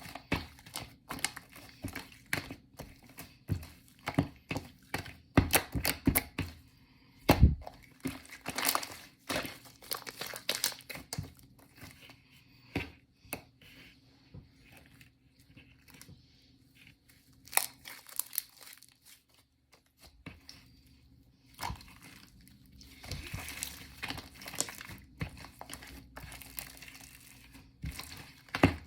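Hands squishing and stretching a shaving-foam marbled slime: a run of sticky crackles and pops that thins out in the middle and picks up again near the end.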